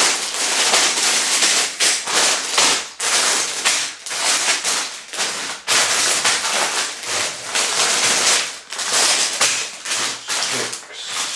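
Clear plastic bags of LEGO pieces crinkling and rustling as they are picked up and moved, almost without a break.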